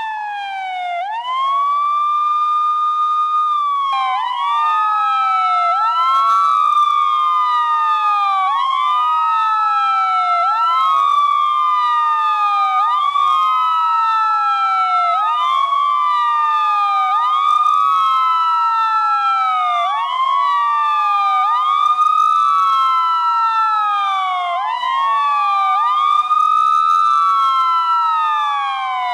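Police siren wailing in a continuous cycle. Each wail rises quickly, holds briefly, then slides down over a couple of seconds, and successive wails overlap out of step so that a new rise starts about every two seconds.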